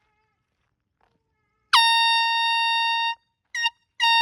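Handheld canned air horn blasting loud: one long blast of about a second and a half that swoops briefly down in pitch at its start and then holds one steady note, then a short toot, then a third blast starting near the end.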